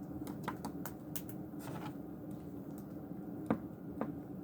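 Light, irregular clicks and taps, a few per second at most, over a low steady hum.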